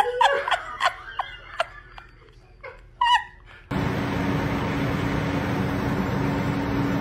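A man laughing, with a few sharp clicks and a short high-pitched cry. From about four seconds in, a floor fan is running with a steady rushing noise and a low hum.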